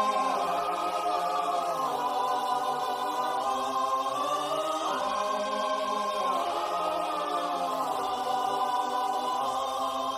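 A choir singing one long held chord of many voices at an even level, the pitches drifting slightly about halfway through.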